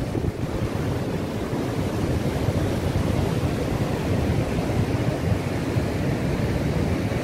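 Heavy surf from a rough sea breaking on rocks, a steady rush of waves, with wind buffeting the microphone.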